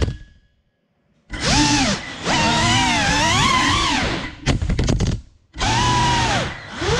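GEPRC CineLog 35 cinewhoop's brushless motors and ducted propellers whining, the pitch rising and falling as the throttle changes. The whine cuts out for about a second near the start, stutters briefly a little past the middle, and dips again twice before picking back up.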